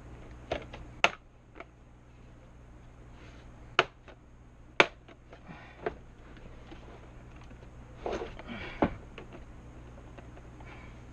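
Small tools and parts being handled and set into a plastic parts bin: scattered sharp clicks and knocks with a little rustling, over a steady low hum.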